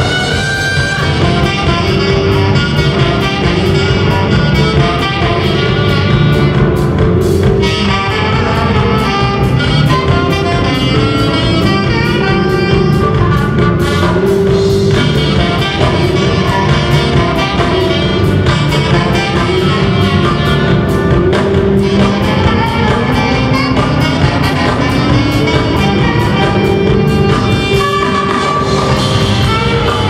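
Live jazz fusion band playing: saxophones carry the melody over electric guitar, bass and a drum kit.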